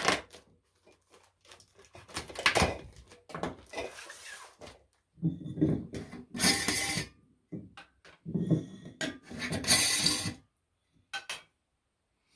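Glass mason jars being handled: clinks and knocks as they are lifted from their cardboard box, their metal lids taken off and the jars stood on a wooden counter. The sounds come in several separate bursts with short gaps between them.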